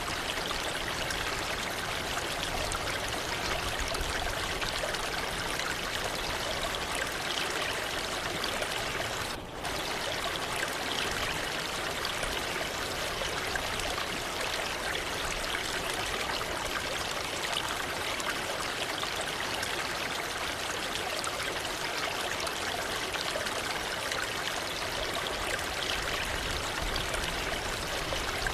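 Waterfall water rushing in a steady, even wash, briefly dipping in level about nine and a half seconds in.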